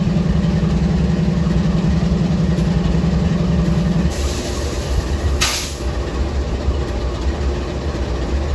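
Diesel freight locomotives idling while stopped, with a steady low engine drone. A strong hum cuts off suddenly about four seconds in, followed by a hiss of air and a short, sharp air release about a second later.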